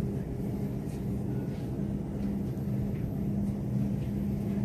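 Steady low hum of indoor building machinery, two held low tones over an even rumble, with no voices.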